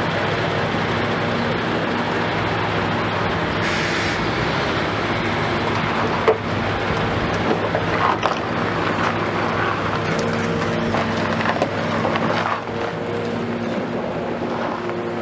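Heavy truck diesel engine running steadily, with a few short knocks and clatters about six, eight and eleven seconds in.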